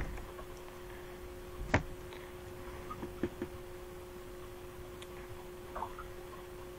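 Knocks in the roof void above a false ceiling: one sharp knock about two seconds in, then three quick fainter taps a second later and another faint sound near the end, over a steady electrical hum. The cause is unexplained; the investigator suspects an infestation of some animal.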